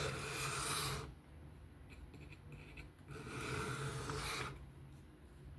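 Knife edge drawn in edge-trailing strokes across a 600-grit Work Sharp sharpening plate: two scrapes, the first in the opening second and the second about three seconds in, lasting about a second and a half.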